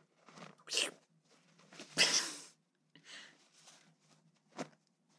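A few short, breathy vocal bursts from a woman, the loudest a half-second hiss about two seconds in, with a small click near the end.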